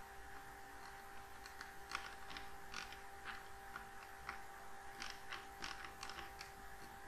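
Faint, irregular clicking of a computer mouse as short eraser strokes are made, a few clicks a second, over a steady faint electrical hum.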